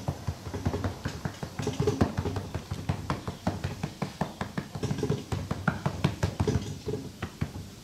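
Hands patting and pressing cornmeal dough flat on a floured cloth over a table: an irregular run of quick taps, several a second.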